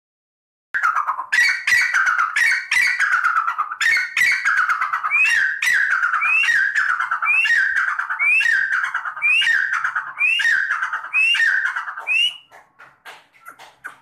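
Grey francolin (Dakhni teetar) giving its loud territorial call, a long run of quickly repeated phrases about two a second. From the middle on, each phrase ends in a short rising note. It starts just under a second in and stops about twelve seconds in.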